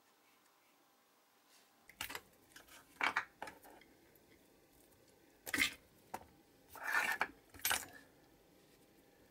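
Handling noises from a pink rubber casting mould being flexed and worked by hand on a cutting mat: irregular light taps, clicks and rustles in short bursts, starting about two seconds in.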